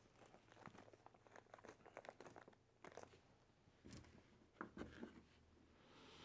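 Faint handling noise: small clicks and crinkles as tiny screws and small brass steering blocks are picked up and turned over by hand, with a few slightly louder clicks about four and five seconds in.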